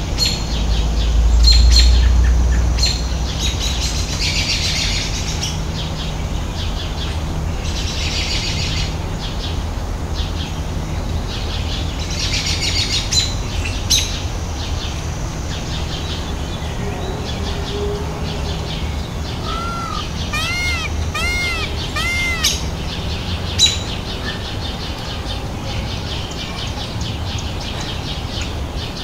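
Birds chirping in short, high notes. About two thirds of the way in, a bird gives four quick calls that rise and fall. A low rumble sits under the first few seconds.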